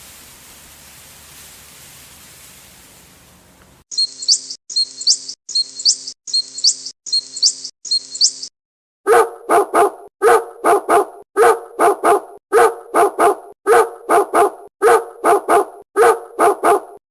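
A dog barking over and over in quick short barks, many in pairs, taking up the second half. Before it comes a steady hiss, then six identical short high-pitched calls.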